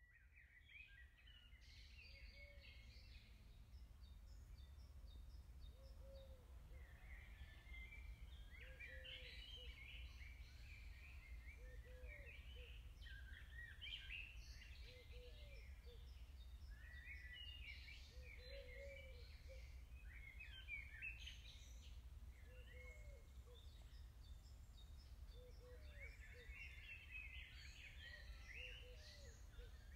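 Faint outdoor ambience with several songbirds chirping and warbling, a lower short call repeating every second or two, and a steady low rumble underneath. It fades in over the first couple of seconds.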